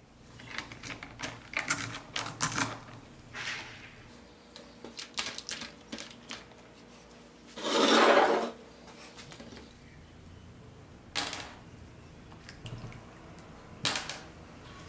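Light clicks and scrapes of small parts being handled, then a loud splash and slosh of liquid in a plastic tub about eight seconds in. Near the end come two sharp taps as wet white rings are set down on the work surface.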